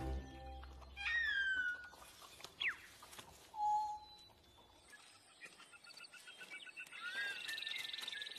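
Cartoon sound effects for a small animated bird chick, made up of separate short calls. There is a falling whistle-like call about a second in, a quick zip, and a short steady tone. Near the end comes a run of rapid soft peeps with a rising chirp.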